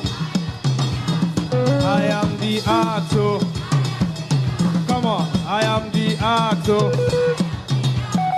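Upbeat backing music with a drum kit and percussion keeping a steady beat under a short melodic phrase that repeats.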